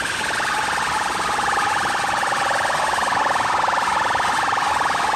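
Very loud DJ sound system playing a harsh, buzzing, siren-like electronic tone that sags a little in pitch over the first seconds, then holds. It rides on a dense, distorted wash of sound.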